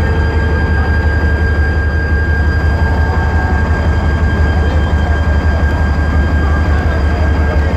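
Diesel-electric locomotive engine running steadily: a deep, even drone with a constant high whine over it.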